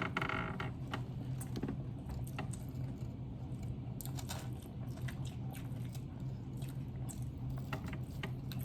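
Chewing and mouth noises of people eating fast food, with scattered small clicks and crunches over a steady low hum.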